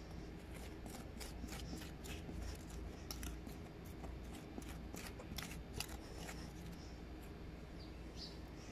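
Metal spoon scraping and scooping into packed sandy soil: a quick run of short, sharp scrapes that thins out after about six seconds.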